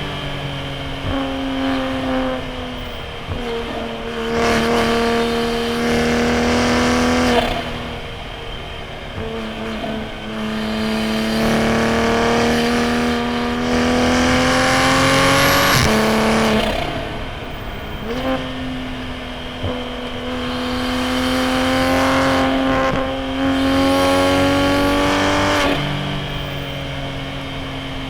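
Toyota A90 Supra's B58 turbocharged 3.0-litre inline-six through a straight-piped titanium single-exit exhaust, driven hard: the engine pitch climbs in long pulls and drops sharply several times as it shifts or lifts, then climbs again.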